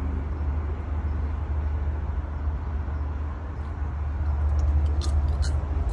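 Steady low hum, with a few faint clicks about five seconds in.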